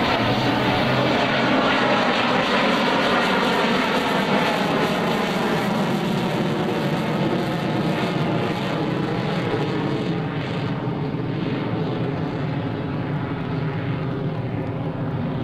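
F-16 fighter's jet engine at full afterburner in a steep climb: a broad, rushing jet noise that slowly fades and loses its high end about ten seconds in as the jet climbs away.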